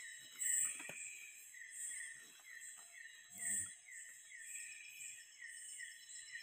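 Night chorus of tropical forest insects: a chirp repeating about three times a second over a steady high trill and pulsing buzz. There is a soft rustle in the undergrowth about three and a half seconds in.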